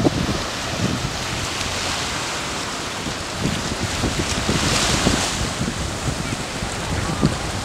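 Small ocean waves breaking and washing up a sandy beach, with a wave's hiss swelling about halfway through. Wind buffets the microphone with low rumbles throughout.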